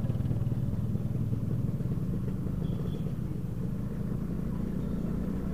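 Motorcycle engine running steadily at low speed in slow traffic, a low, even engine note.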